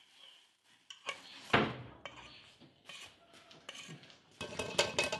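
Metal spoon scraping and knocking against a steel pan while thick sauce is scraped out into a pot. A sharp clank about a second and a half in is the loudest, and a quick run of scrapes and clinks comes near the end.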